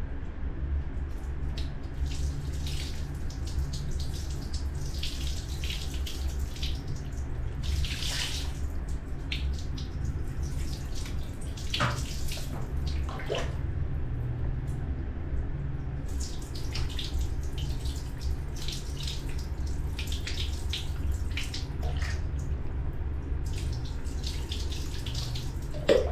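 Water poured from a plastic dipper splashing over a baby monkey during its bath, in repeated pours and splashes, over a steady low hum.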